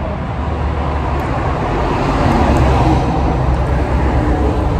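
Street traffic noise: a steady road rumble that grows louder for a moment in the middle, as a vehicle passes.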